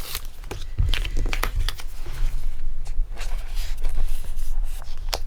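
Light rustling and scattered soft clicks of trading cards being handled and slid into a plastic card sleeve, over a steady low hum.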